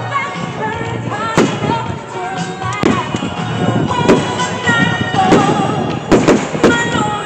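Fireworks shells bursting in the air with several sharp bangs, three in quick succession about six seconds in, over loud music playing throughout.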